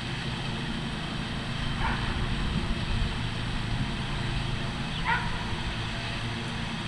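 Two short, high calls from an animal off in the distance, one about two seconds in and another about five seconds in, over a steady low background rumble.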